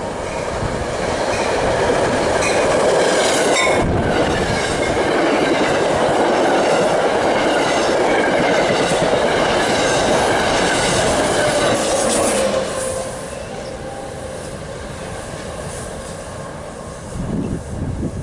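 A train passing close by, its wheels clicking over the rail joints and squealing. The passing noise is loudest for about twelve seconds, then drops off sharply as the train clears.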